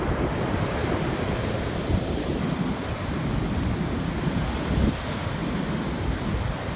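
Atlantic surf washing onto a beach, a steady rush of waves, with strong wind buffeting the microphone in a low, gusty rumble.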